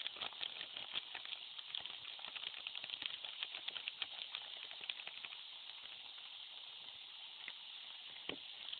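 Pot of onions cooking on a portable gas stove: steady hiss with many quick sizzling crackles, dense for the first five seconds or so and thinning out after that.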